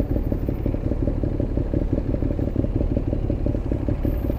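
Ducati Monster 821's L-twin engine running steadily at an even, unchanging speed, its rapid firing pulses heard from the rider's seat.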